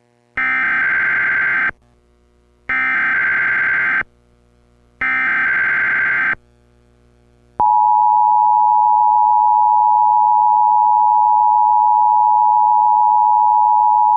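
Emergency Alert System broadcast alert. Three bursts of buzzy digital header data (SAME codes) sound about a second apart, then the steady two-tone EAS attention signal comes in about halfway through and holds.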